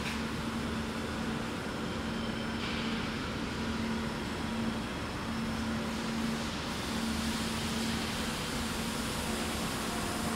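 Steady mechanical hum with a low droning tone that drops out briefly a few times.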